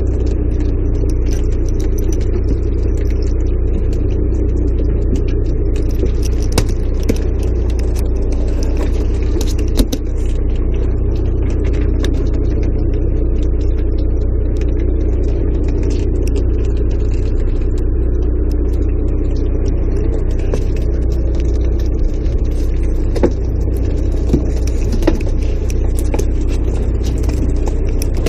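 Boat engine running steadily with a low, even rumble, with a few scattered knocks and clicks on the deck.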